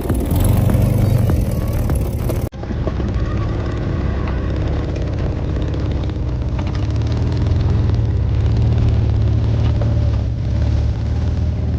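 A motor vehicle engine running steadily with a deep, low sound, with an abrupt momentary drop-out about two and a half seconds in.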